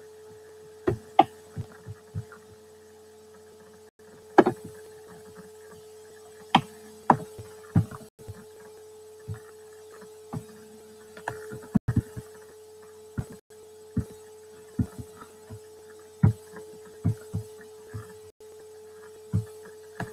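Steady electrical hum holding one pitch, with irregular short clicks and knocks from a computer mouse and keyboard being worked, about a dozen of them and none evenly spaced.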